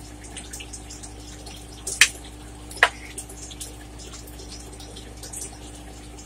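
Eating sounds: small wet mouth clicks and smacks while chewing, with two louder clicks about two and three seconds in, over a steady low hum.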